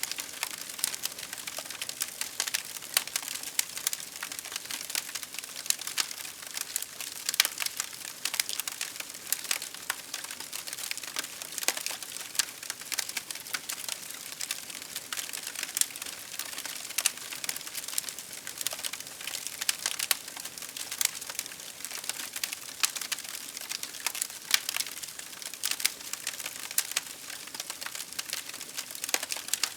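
Wood fire crackling: a steady stream of small, sharp pops and snaps over a soft hiss.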